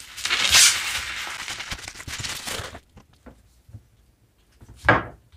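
Plastic bubble wrap crinkling and rustling as it is unrolled from around a small cardboard box, for nearly three seconds, then stopping. A single short, sharp sound comes near the end.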